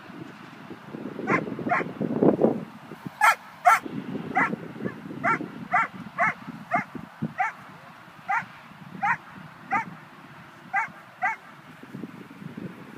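A dog giving a string of short, high-pitched cries, roughly one or two a second, stopping about two seconds before the end. Low rustling runs underneath.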